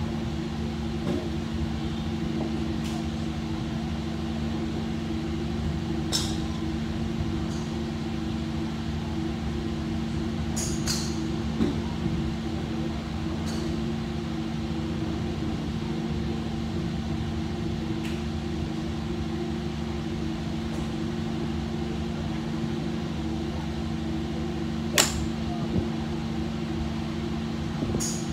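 Golf club striking a ball off a driving-range mat: one sharp crack about 25 seconds in, with a few fainter cracks of shots earlier and near the end. A steady hum runs underneath.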